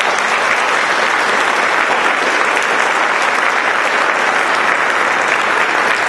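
Audience applauding steadily, many hands clapping together into a dense, even patter.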